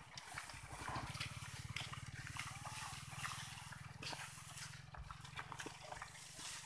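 A small engine running at a steady idle, a low, evenly pulsing rumble, with light scattered clicks and rustles over it.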